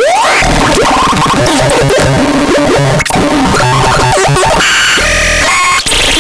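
WUZBRUCHT SP-161 electronic sound device making harsh, glitchy synthesized noise. It starts with quick rising pitch sweeps, turns to choppy stuttering tones and noise, and shifts to buzzy stepped high tones near the end.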